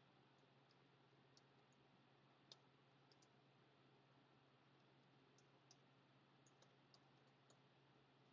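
Near silence with faint, irregular clicks of computer keyboard keys being typed over a low steady hum; one click about two and a half seconds in is a little louder.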